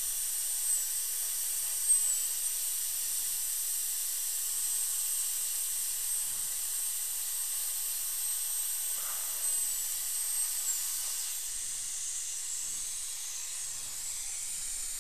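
High-speed dental handpiece with a fine diamond bur cutting through an old porcelain-fused-to-metal crown: a thin high whine that dips a few times under load, over a steady hiss. The whine stops about eleven seconds in and the hiss carries on.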